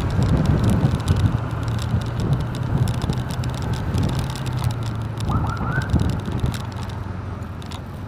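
Motorcycle engine running steadily under road noise, easing off and getting quieter as the bike slows for a turn. Two or three brief high rising squeaks a little past halfway.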